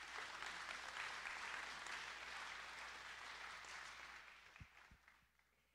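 Audience applauding, dying away over the last second or two.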